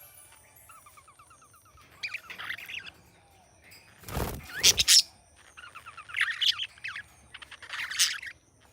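Budgerigar chirping and chattering in short bursts, opening with a quick run of falling notes. About four seconds in comes one loud, harsh squawk.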